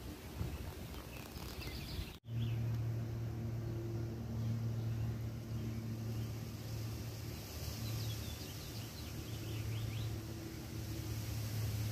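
A steady low mechanical hum from a running motor, with faint short bird chirps about a second in and again around eight to ten seconds in. The sound drops out for an instant about two seconds in.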